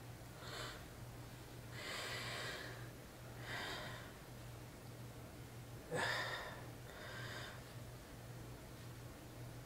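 A man's breaths, short snorting huffs and exhales, about five of them, the sharpest about six seconds in, as he strains to work a mesh shirt free of his earring. A steady low hum runs underneath.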